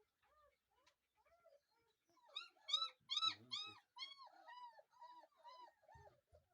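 Young German Shepherd puppies whining and crying: a quick run of short rising-and-falling squeals, about three a second, loudest in the middle and trailing off softer.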